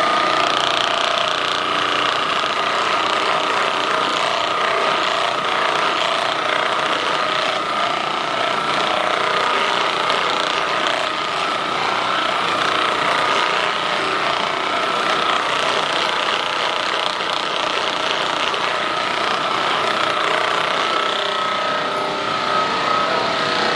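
Handheld percussion massage gun running steadily against a sore muscle, its motor whine held at one pitch throughout.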